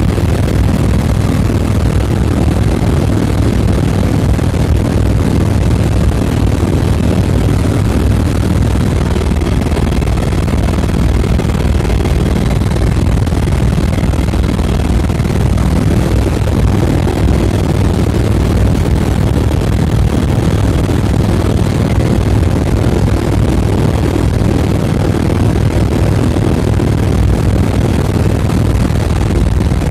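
Helicopter engine and rotor noise heard inside the cabin in flight: a loud, steady drone, strongest in a low hum, with no change through the stretch.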